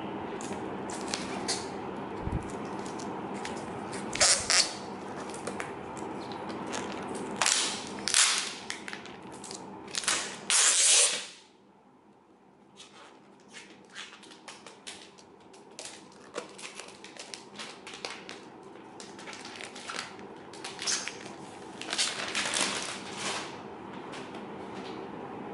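Hands handling an aluminium MacBook Air laptop, fingers rubbing and knocking against its metal case in scattered clicks and short rustles. A steady hum underneath cuts off suddenly about eleven seconds in.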